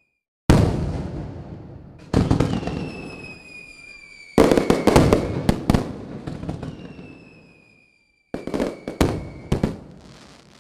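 Aerial fireworks going off: a loud bang about half a second in and another about two seconds in, each fading away, then rapid runs of sharp cracking bangs around the middle and again near the end. Twice a high whistle slowly falls in pitch.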